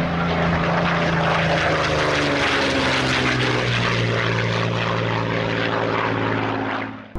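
Propeller aeroplane flying past, its engine note dropping in pitch about halfway through, then fading out quickly near the end.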